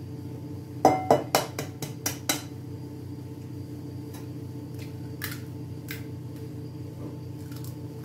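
Eggs being tapped against the rim of a metal mixing bowl to crack them: a quick run of about six sharp knocks about a second in, then a few fainter taps later.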